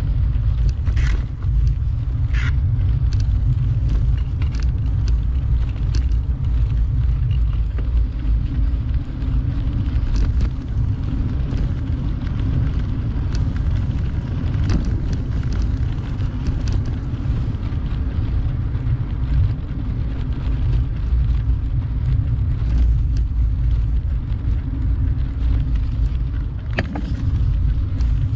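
Steady low rumble of riding a bicycle: wind buffeting the microphone and tyre noise on the road, with scattered light clicks and rattles.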